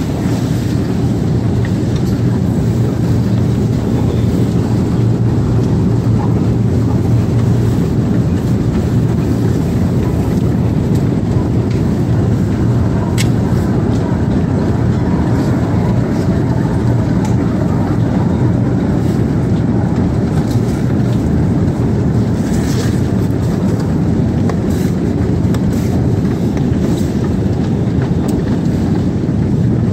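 Escalator running: a steady mechanical hum with a low drone under a broad rumble, and a few faint clicks now and then.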